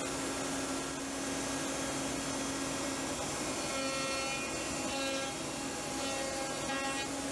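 Router running in a router table with a flush trim bit, with dust extraction on the fence. From about three and a half seconds in, a plywood part is pushed past the bit to trim off its holding tabs, and the tone of the machine changes as the bit cuts.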